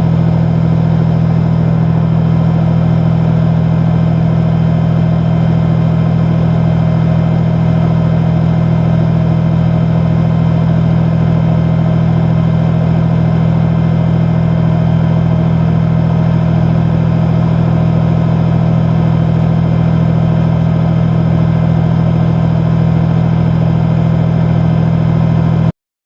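Tank's diesel engine idling with a steady, unchanging low drone. It cuts off abruptly near the end.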